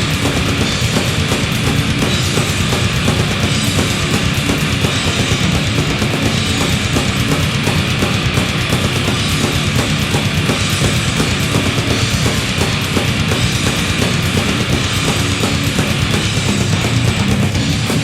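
Raw black metal playing: fast, dense distorted guitars over rapid drumming, unbroken throughout.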